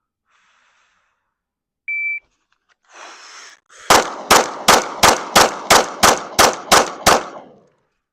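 A shot timer beeps once, then after a short rustle of the draw from concealment a pistol fires ten rapid shots, about three a second. The first shot comes about two seconds after the beep, and the last lands just over the 5-second par time.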